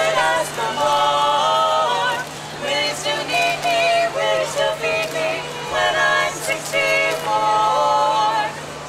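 Women's vocal quartet singing a cappella in close harmony, holding chords for about a second at a time before moving to the next.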